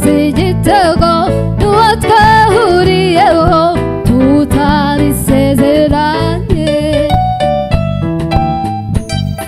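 Live band music: a female voice sings a wavering, gliding melody over electric bass, drums and keyboard. About two-thirds of the way through the voice drops out, leaving the instruments playing on.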